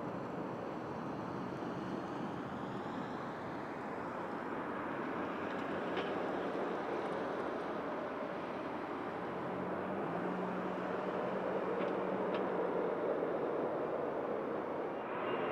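Boeing 777-9's GE9X turbofan engines running at taxi idle as the airliner taxis after landing: a steady jet noise that grows slightly louder in the second half.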